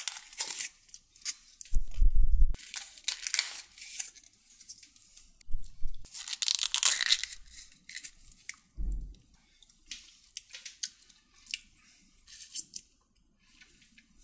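Irregular tearing and crinkling of takeaway food packaging, with three dull low thumps, the loudest about two seconds in.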